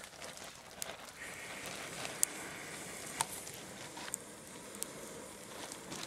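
Air blown steadily through a hollow bracken-stem blow tube into campfire embers to bring them up to flame, with a few sharp crackles from the fire.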